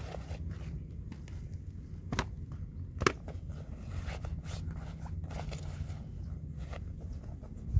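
Gear being handled in an SUV's cargo area: light rustling and clicks, with two sharp knocks about two and three seconds in, the second the louder, over a steady low rumble.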